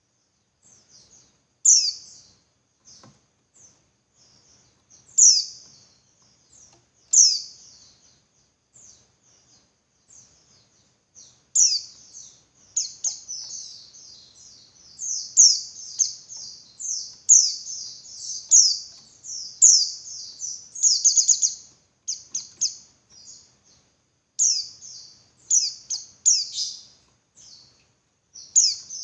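Female white-eye (pleci) calling: high, sharp downward chirps, at first single calls about two seconds apart, then from about twelve seconds in a fast, almost unbroken string of them. It is the female's call to males, the kind used to rouse male white-eyes into full song.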